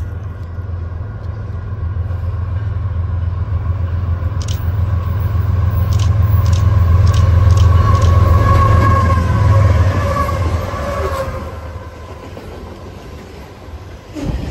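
Canadian Pacific freight train's diesel locomotives approaching and passing close by: a deep engine rumble builds to its loudest about 8 to 10 seconds in, with a whine that dips slightly in pitch as the locomotives go past, then gives way to the quieter rolling of the freight cars. A run of sharp clicks sounds about halfway through.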